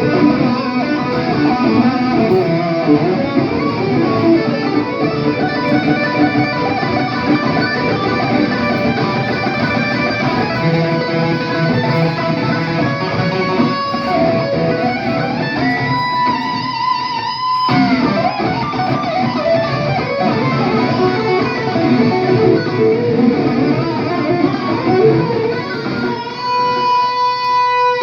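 Electric guitar playing a fast lead solo, with long held notes about halfway through and again near the end.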